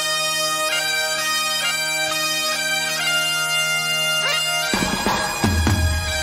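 Great Highland bagpipes, two pipers, playing a melody over steady drones. About three-quarters of the way through, drums and a heavy low end come in under the pipes.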